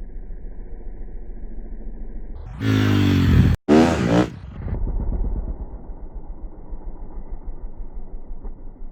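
A motor vehicle's engine running steadily, revving up loudly for about two seconds partway through and then settling back.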